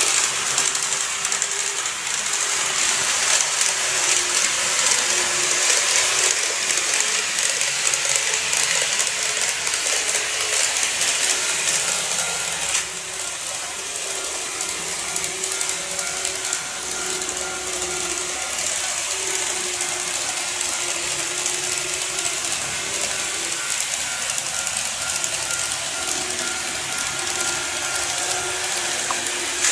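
KATO N-scale model electric trains running on track: a steady rattling clatter of wheels and drive gears, with a thin motor whine under it. About 13 seconds in, the sound drops slightly quieter as a 731 series set gives way to a 789 series 1000 set.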